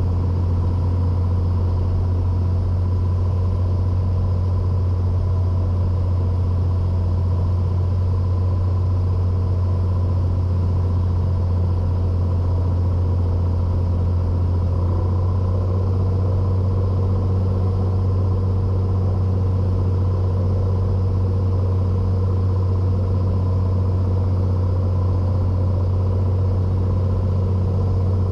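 Cessna 182 Skylane's engine and propeller droning steadily in the cabin on short final with 30° of flaps set, at reduced approach power. Its tone shifts slightly about halfway through.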